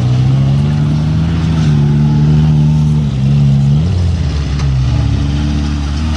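4x4 off-road vehicle engines running close by, the revs shifting up and down as the vehicles move off in a line.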